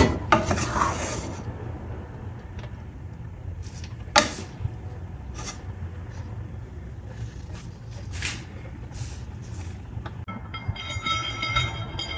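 A plastic spatula stirring and tossing cooked basmati rice in a stainless steel pan, with a few sharp scrapes and clacks against the pan over a steady low hum. Music comes in about ten seconds in.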